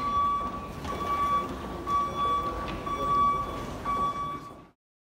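Electronic warning beeper sounding about once a second, a single high steady beep each time, over a low rumble and the murmur of voices. It all stops abruptly near the end.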